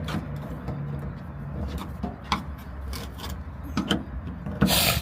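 Scattered light clicks and knocks of hand tools and metal parts being handled in a truck cab, over a steady low hum. A brief, louder scrape comes near the end.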